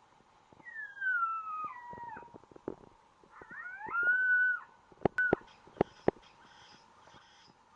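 Two drawn-out coyote howls: the first slides down in pitch, the second rises and then holds. A few sharp clicks follow about five seconds in.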